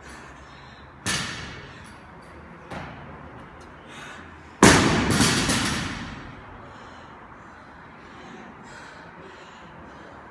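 Gym equipment hitting the floor and echoing through the gym hall: a sharp thud about a second in, a lighter one near three seconds, and a loud crash with a ringing tail about four and a half seconds in.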